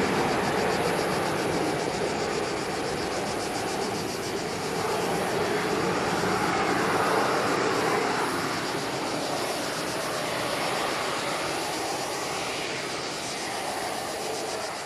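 Jet engine noise of a departing Airbus A321-211, its two CFM56 turbofans at takeoff power, a steady roar that slowly eases as the aircraft draws away.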